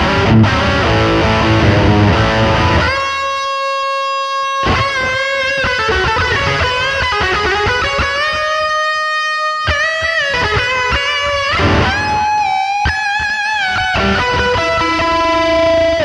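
Electric guitar played through a Demonfx King of Drive dual overdrive pedal: about three seconds of dense overdriven chords, then sustained single-note lead lines with string bends.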